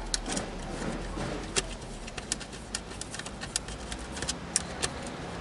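Irregular sharp metallic clicks and taps from small deadbolt parts being handled as a new tailpiece is fitted to the lock.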